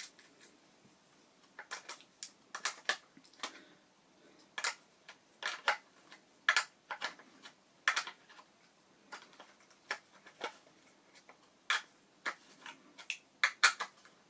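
Irregular sharp clicks and knocks, some in quick pairs, of hard skate parts being handled: wheels, bearings and axle hardware taken apart on FreeLine skates.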